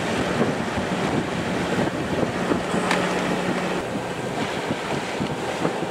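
Sea water rushing and splashing along the hull of a sailing yacht under way, with wind buffeting the microphone. A faint low steady hum comes and goes, and there is one brief click about halfway through.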